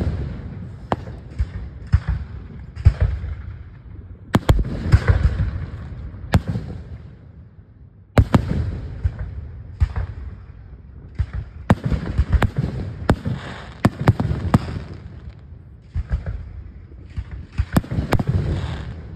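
Aerial firework shells launching and bursting overhead, a rapid, irregular string of sharp bangs and cracks in bunches, with a low rumble carrying on after them.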